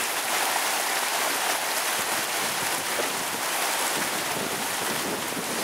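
Heavy rain mixed with hail pelting a wooden deck: a steady, even hiss.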